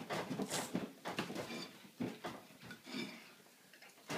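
A large dog licking and nosing a plate on a wooden floor, the plate knocking and scraping against the boards in irregular bursts.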